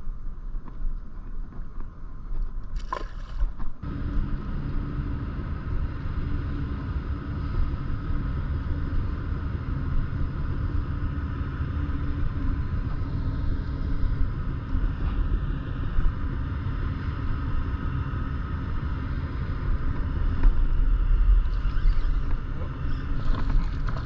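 A small motor switches on about four seconds in and runs at a steady hum, with a short click just before it starts.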